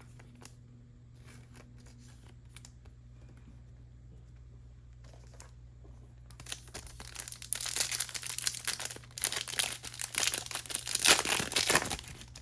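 A few faint handling clicks, then a foil trading-card pack being torn open and crinkled for about the last six seconds, loud and crackling.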